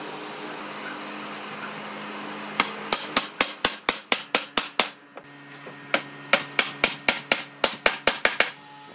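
Mallet striking the top of a wooden table leg, driving it down into a glued joint in the frame rail. The strikes come quickly, about four or five a second, in two runs of a dozen or so with a short pause between.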